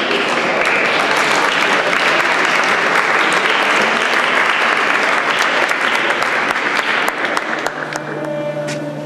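Audience applauding, dying away near the end as music starts in.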